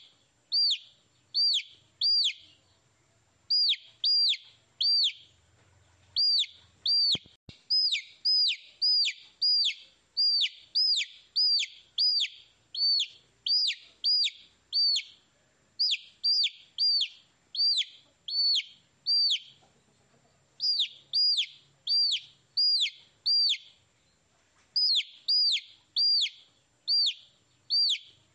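Baby chicks peeping: loud, repeated chirps that each drop sharply in pitch, coming in quick runs of two to four with short pauses between.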